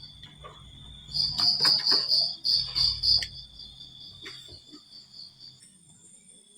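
Wooden marble run with marbles clicking and knocking down the track, several sharp clicks over about two seconds starting a second in. Under them runs a steady pulsing high-pitched chirp, loudest while the clicks sound.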